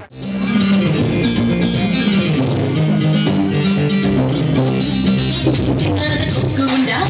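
Loud Tamil dance-song music. It drops out for a split second at the very start, then a new song comes in and runs steadily.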